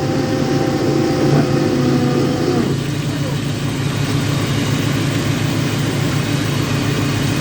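Boat engine running steadily, with a held higher tone over it that stops about two and a half seconds in.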